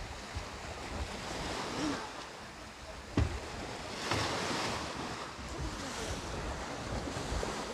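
Wind rushing over the microphone with a surf-like roar that swells about four seconds in, and one sharp knock about three seconds in.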